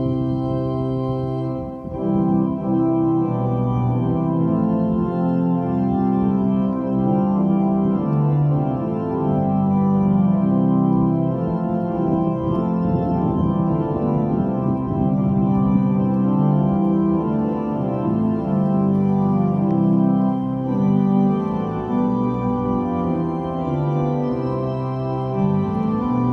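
Organ playing held chords that change every second or so. The music briefly drops off just under two seconds in, then a new phrase begins.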